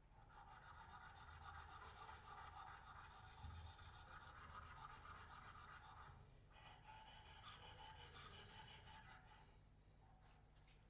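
Faint, steady rasping of a hand tool rubbing on an aluminium air-conditioning pipe, the pipe ends being dressed for crimping onto a hose. It breaks off briefly about six seconds in, resumes, and tails off near the end.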